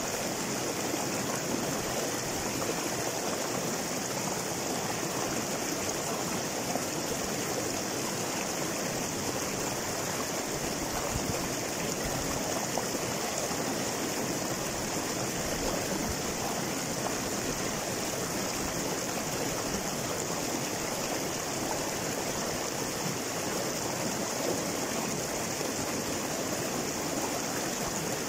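River water rushing and splashing over boulders in small cascades, a steady unbroken rush.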